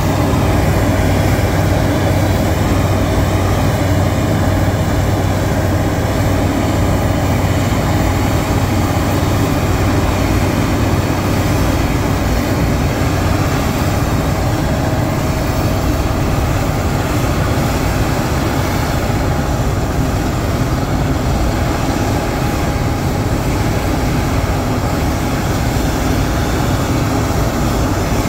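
John Deere X9 1000 combine harvesting, its engine and threshing machinery running in a steady, loud drone. A low hum in the drone drops away about twelve seconds in.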